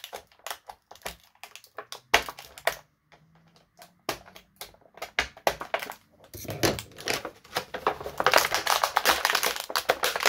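Twist ties being worked off a plastic action figure's arms by hand: scattered small plastic clicks and taps, then a denser, louder crackle of packaging from about eight seconds in.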